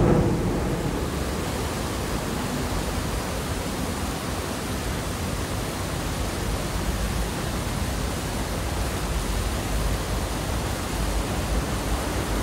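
Steady, even rushing noise with no distinct event in it.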